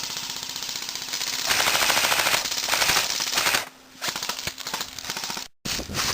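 Airsoft guns firing rapid full-auto strings, a fast run of sharp clicks, loudest in the middle. The firing thins briefly about two-thirds in and cuts out for an instant near the end.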